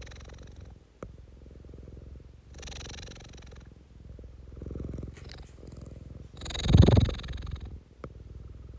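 Domestic tabby cat purring steadily, a low rumble that swells with each breath into a louder, breathier phase every few seconds, loudest about seven seconds in.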